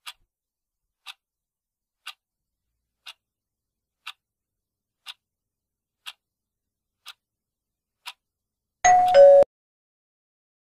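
Countdown-timer sound effect: nine clock ticks, one a second, then about nine seconds in a short, much louder two-note electronic sound falling in pitch as the countdown reaches zero, signalling time's up.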